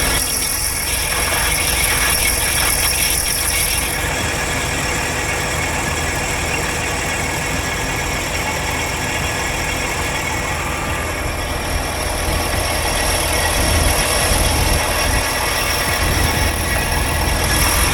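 Semi truck's diesel engine idling, a steady unbroken rumble.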